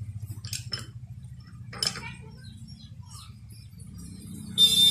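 Metal tools clinking and tapping against a steering-box tie rod and ball joint as it is worked with a wrench, over a low steady hum. Near the end a loud, high-pitched steady tone cuts in.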